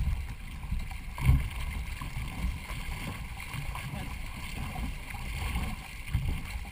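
Two-person racing canoe under way: paddle strokes in a steady rhythm, low thumps about once a second, over water rushing along the hull.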